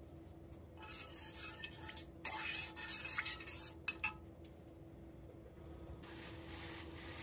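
A metal spoon stirring and scraping in a stainless steel pot of vinegar-and-water pickling brine, in two spells with a few clinks against the pot.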